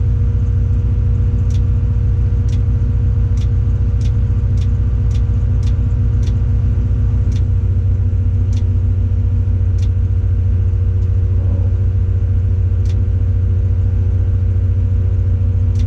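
Tadano 180G-5 crane's diesel engine running steadily, heard from inside the operator's cab as a low, even hum. Light clicks sound every second or so through most of it.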